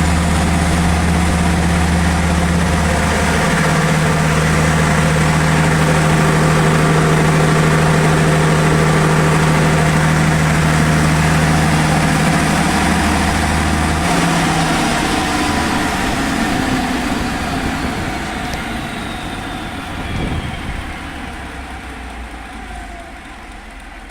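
A Perkins diesel engine on a 760 kVA generator set runs steadily, then shuts down about halfway through. Its pitch falls and the sound fades as it spins down.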